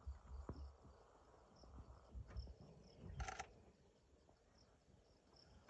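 Near silence: faint forest ambience with insects chirping, and a brief louder sound about three seconds in.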